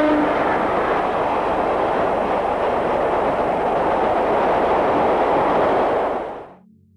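W-set electric suburban train running past with a loud, steady rumble and rattle of wheels on track, the tail of its horn dying away right at the start. The sound fades out shortly before the end.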